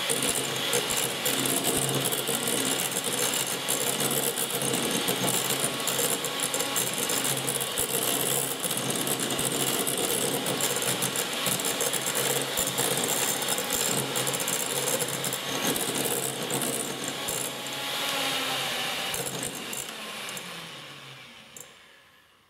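1980s Gorenje hand mixer (type M202) running steadily with its twin beaters whipping cream, rattling and clicking against a glass bowl. Near the end the motor slows, its hum falling in pitch, and it winds down to a stop.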